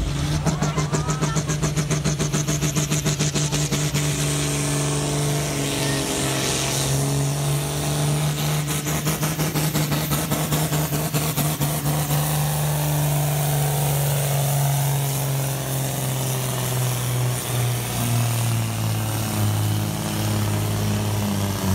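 Diesel engine of a green John Deere pulling tractor running flat out as it drags a weight sled down the track, belching black smoke. Its loud note holds steady and then slowly sinks in pitch as the load builds.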